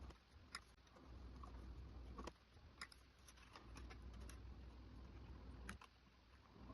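Scattered light clicks and taps of a screwdriver and small parts being handled while a TV's motherboard is removed, over a faint low hum.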